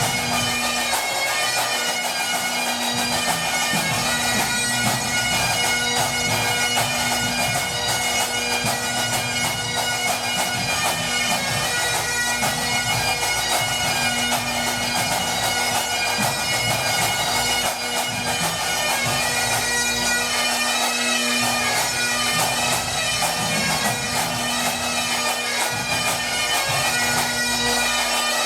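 Highland pipe band playing a competition medley: Great Highland bagpipes sounding a melody over a continuous steady drone.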